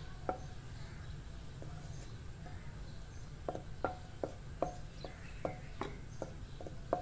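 Wooden spatula tapping and scraping against a metal karahi while stirring melting ghee: light taps, a few at first, then about three a second from about halfway through.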